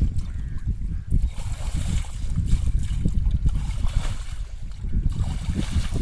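River water splashing and trickling as a man scoops it by hand onto a bullock's legs, under a steady rumble of wind on the microphone.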